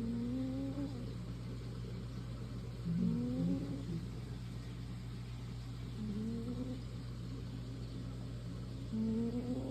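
American Shorthair cat snoring: a short, rising nasal tone on each breath, about every three seconds, four times.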